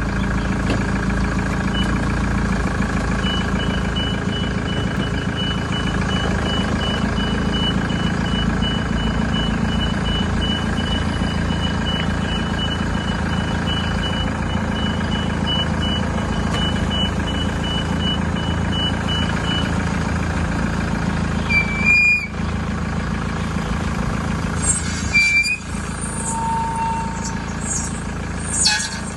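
Car running with a steady low drone from the wheels and running gear, the kind of noise the mechanic puts down to a bad wheel bearing. An even, high-pitched beeping runs through the first two-thirds, and a few short chirps and clicks come near the end.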